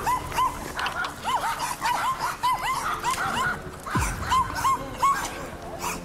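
Small dogs barking rapidly and aggressively on the leash, short high yappy barks at about three a second with a brief gap partway through. This is the reactive barking at people and other dogs that is put down to the dogs seeming fearful and poorly socialised. A brief low falling sound comes about four seconds in.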